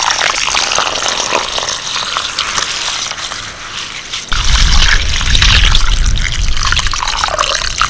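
Water pouring into a steel bowl of dry basmati rice, then from about four seconds in a hand swishing and rubbing the rice in the water, washing it, with louder, deeper sloshing.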